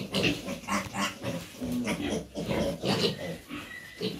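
Pigs in a pen grunting and squealing, a quick run of short, irregular calls.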